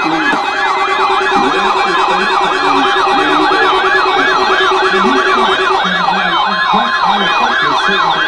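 Electronic siren in a rapid yelp, its pitch sweeping up and down about three times a second. A steady lower tone sounds under it and stops about three-quarters of the way through.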